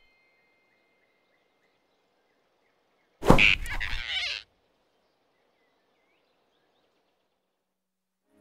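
An animated squirrel's sudden, loud squeal as it is grabbed by the neck, starting about three seconds in and cutting off after about a second, over faint forest ambience with small chirps.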